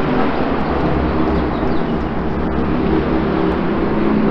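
Steady mechanical rumble with a low hum underneath, with faint scraping of a plastic spatula spreading brown sugar and melted butter in a cast iron Dutch oven.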